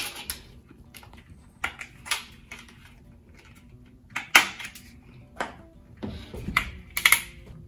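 Tin snips cutting a metal ceiling T-bar: a series of separate sharp metallic snips and clicks, the loudest about four seconds in, with a quick cluster near the end.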